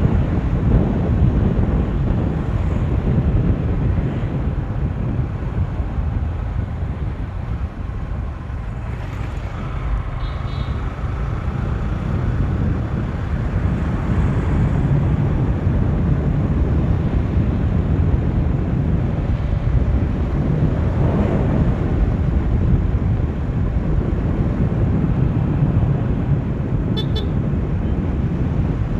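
Motorcycle riding at speed: steady low wind rumble buffeting the rider's microphone, with the engine and road noise underneath.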